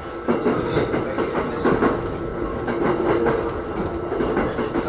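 E129 series electric train running, heard from inside the car: wheels clacking over rail joints, with a steady hum from the running gear.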